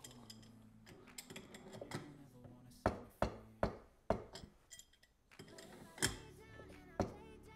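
Sharp metal clinks as an adjustable wrench is fitted and turned, a few strokes at a time, on the nut of a makeshift threaded-rod crankshaft installer, drawing the crank into the case bearing. Soft background music with low held notes plays underneath.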